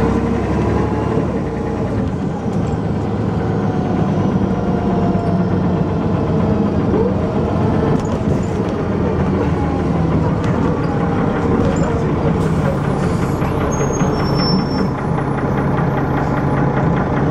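Dennis Arrow double-decker bus's diesel engine running under way, its pitch rising and falling as it pulls and changes gear, with the knocking noise that the uploader notes on this bus.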